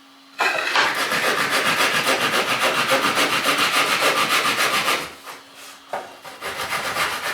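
A handsaw cutting through a piece of plywood: fast, even rasping strokes for about four and a half seconds, then a quieter, patchier stretch of sawing near the end.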